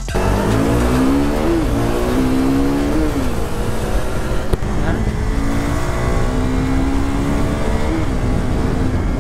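KTM RC 390's single-cylinder engine revving up under acceleration and dropping back in pitch at each gear change, three times, over steady wind rush on the microphone.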